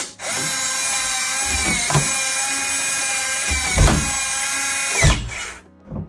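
Nuki Smart Lock Pro 4's motor whirring steadily for about five and a half seconds as it turns the door's lock cylinder, set off from the keypad, with a click at the start and three heavier knocks along the way.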